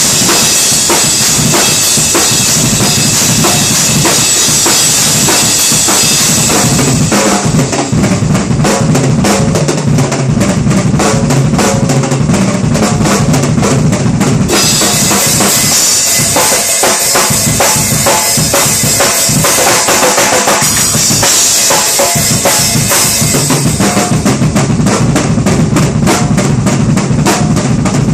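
Acoustic drum kit played freestyle: fast, dense bass drum, snare and tom strikes, with cymbals washing over the playing for stretches and dropping out in between.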